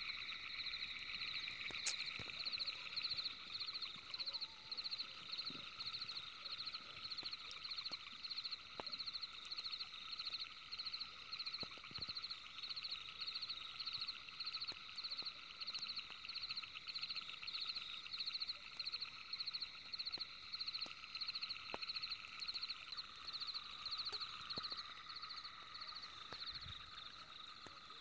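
Frogs calling at night: a steady chorus of fast trills pulsing about twice a second, easing off a little near the end.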